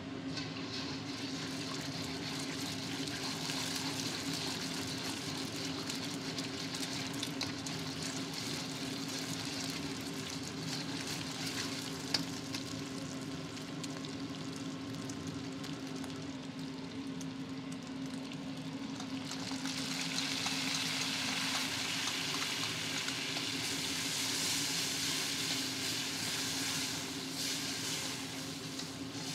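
Eggs frying and sizzling in hot oil in a wok as they are stirred, over a steady low hum. The sizzling grows louder about two-thirds of the way through, with a single sharp click a little before the middle.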